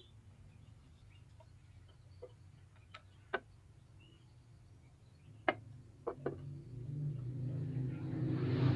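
A few sharp light clicks and taps from handling a bamboo kite-flute set, varnish brush and tin lid, then a low steady drone with hiss that builds up over the last few seconds and is the loudest sound.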